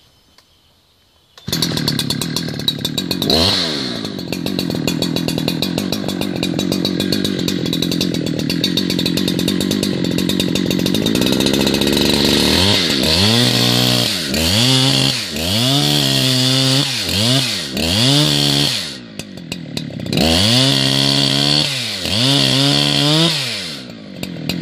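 Chainsaw starts up loudly about a second and a half in and runs at high revs through the back cut of a blue gum tree. Past the halfway point the throttle is revved up and down again and again, with two short drops in level near the end.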